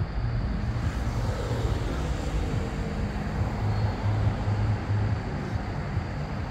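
Steady low rumble of road traffic, with a pulsing low hum underneath.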